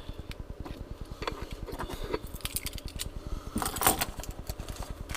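Small clicks and rattles of fishing tackle and a metal pocket tool being handled and rummaged, with a louder clatter about three and a half seconds in, over a low, fast-pulsing background hum.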